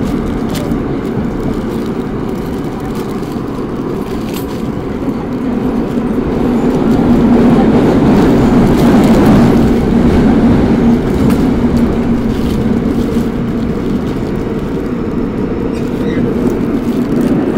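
Seoul Metro Line 5 subway train running, heard from inside the car: a steady rumble with a low hum that swells louder for a few seconds around the middle.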